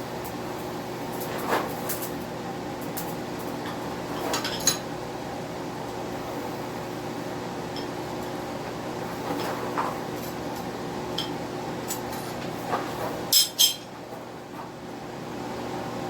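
Scattered light metal clinks and taps of steel tools on a hot railroad spike being twisted, over a steady hum; two sharper clinks come close together near the end, as the hum briefly drops out.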